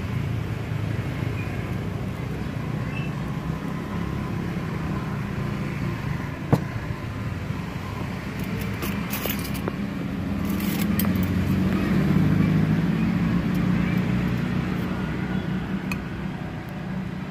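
Low, steady rumble of motor traffic, swelling for a few seconds in the middle as a vehicle passes. A sharp click about six and a half seconds in and a few light clicks a little later.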